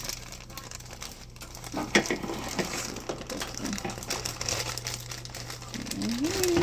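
Plastic cake-mix bag crinkling and rustling as the dry mix is poured out of it into a bowl, with a sharper crackle about two seconds in.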